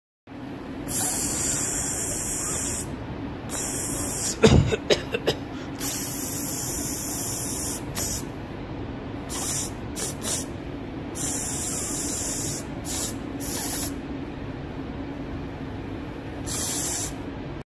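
Aerosol can of guide coat spraying in about ten short hissing bursts, from a fraction of a second to about two seconds each, as light passes are dusted over primer to show up low spots before block sanding. A steady low hum runs underneath, and a sharp knock comes about four and a half seconds in.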